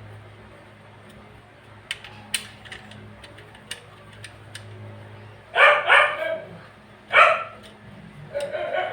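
A dog barks about four times in the second half, short sharp barks over a low steady hum. A few light clicks come earlier.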